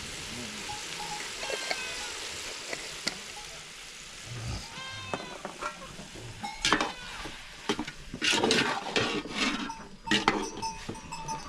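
Chopped goat meat and offal sizzling in a cooking pot while a metal spoon stirs, scraping and clanking against the pot. The clanks come thick and fast in the second half.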